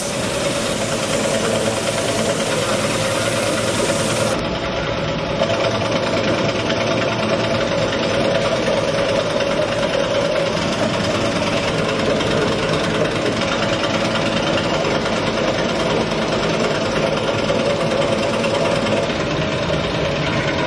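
Steady workshop machine noise, a constant mechanical running sound with an even hum that carries on without a break. A higher hiss drops away about four seconds in.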